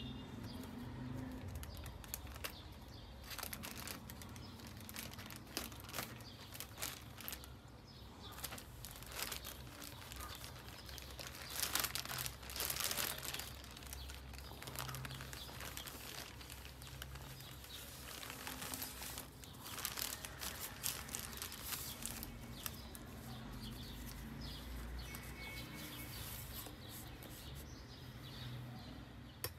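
Plastic mailer bag crinkling and rustling as it is cut open with scissors and the contents pulled out, with the loudest crackling about twelve seconds in.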